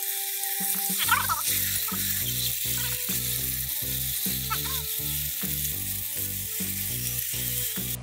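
Batter-coated small mudflat crabs deep-frying in a pan of hot oil: a steady, vigorous sizzle. Background music with a steady beat comes in about a second in.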